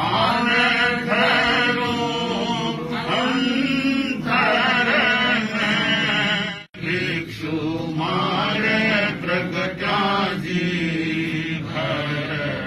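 A man's solo voice singing a Jain devotional hymn in a slow, chant-like melody, with long held and bending notes. The sound cuts out for an instant about two-thirds of the way through.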